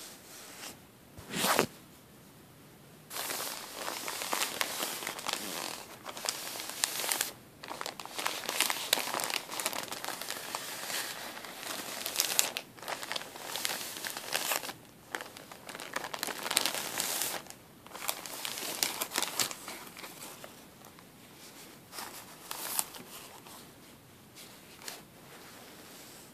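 Thin plastic bag filled with cotton balls crinkling as fingers squeeze and rub it, in dense stretches broken by short pauses and thinning out near the end. A sharp crinkle comes about a second and a half in.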